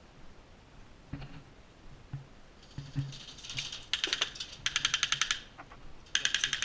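Airsoft gun firing three short full-auto bursts, each a fast rattle of about fifteen shots a second; the middle burst is the longest.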